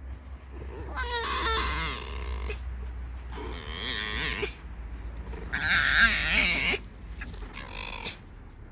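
Pet red fox giving a run of squeaky, raspy calls while being petted, four calls with wavering pitch, the loudest about six seconds in; sounds that could make a listener think the fox is being hurt.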